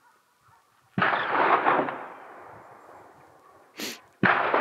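Two rifle shots about three seconds apart, the first about a second in and the second near the end. Each rolls away in a long echo off the hillsides. A brief sharp hiss comes just before the second shot.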